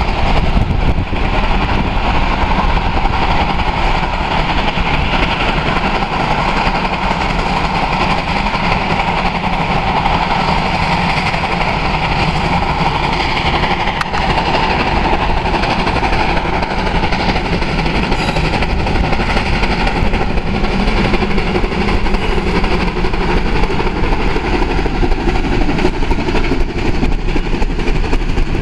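Western Maryland No. 6, a three-truck Shay geared steam locomotive, passing close by at a slow pace under power. Steady steam exhaust mixes with the clatter of its gear-driven trucks and wheels on the rails.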